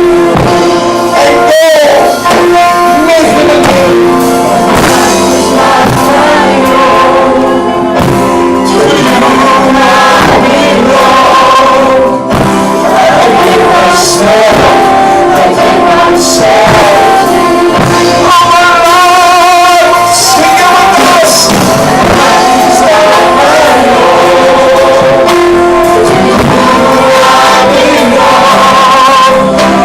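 Live worship music: singing over instrumental accompaniment, loud and continuous.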